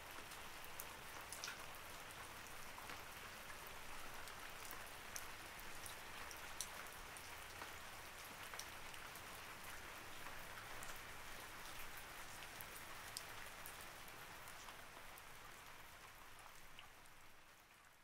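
Faint recorded rain: a steady hiss of rainfall with scattered individual drop ticks, fading out over the last second or so.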